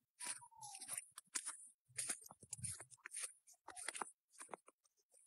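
Footsteps crunching in fresh snow, about two steps a second.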